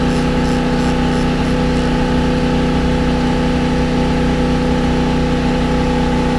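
An engine running steadily nearby, a constant drone. Light ratchet clicks, about three a second, are heard in the first two seconds as a motor-mount nut is turned.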